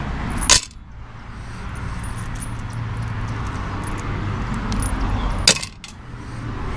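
Small metal screws clinking and scraping as they are handled and picked up off concrete, with two sharper clinks about half a second in and about five and a half seconds in, and faint scattered ticks between, over a steady low background rumble.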